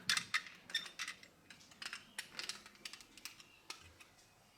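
Irregular light clicks and taps of small metal parts, screws and pieces of a metal Tonka toy truck being handled during dismantling.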